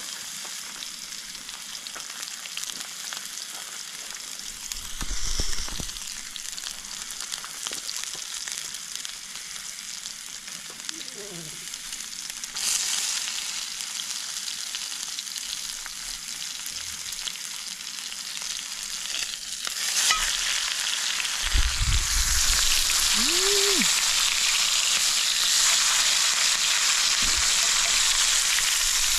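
Steak searing in hot oil in a cast-iron skillet: a steady sizzle that gets louder about halfway through and again towards the end.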